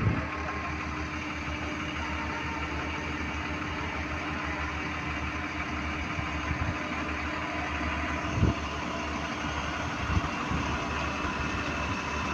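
An engine running steadily at idle with a pulsing low rumble, with two short knocks, about eight and a half seconds in and again a second and a half later.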